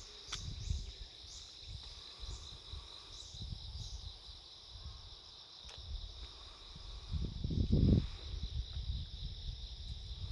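Autumn insects such as crickets trilling steadily together with cicadas: late-summer and autumn insect song overlapping. In the first few seconds a cicada repeats a short rising call about once a second; a low rumble swells around seven to eight seconds in.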